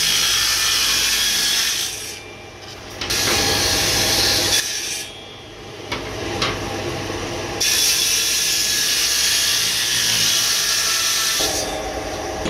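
Table saw cutting laminated particle board: the blade's loud hiss through the board comes in three long stretches, with the saw running freely and more quietly between them.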